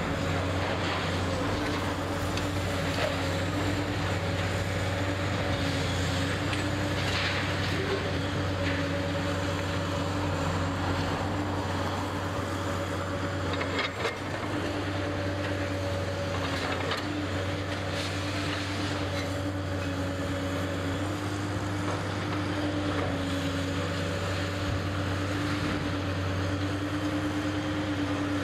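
A large engine running steadily, a low even drone with a slightly wavering pitch.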